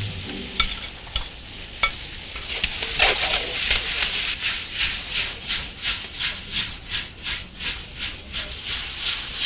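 Chicken strips, onions and strawberries sizzling in a metal wok, with a few light spatula clicks at first. From about three seconds in, the spatula scrapes and tosses the food in quick even strokes, about three a second.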